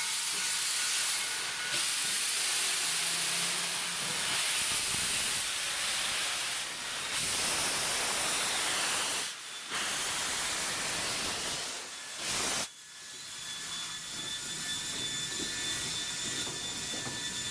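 Steam locomotive, the restored Baldwin 2-6-6-2, letting off steam in a loud steady hiss. The hiss breaks off sharply twice and is quieter after about thirteen seconds.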